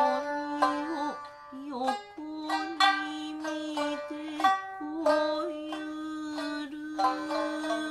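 Shamisen plucked in a kouta accompaniment, with sharp struck notes. Over it a woman's voice holds long drawn-out notes.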